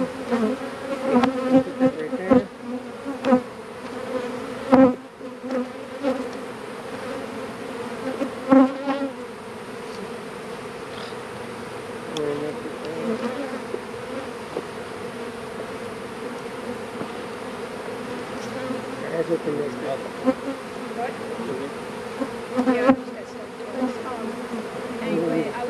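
Honeybees buzzing around an opened hive: a steady hum pitched near 250 Hz with an overtone an octave up. Several sharp knocks fall in the first nine seconds, the loudest about five seconds in.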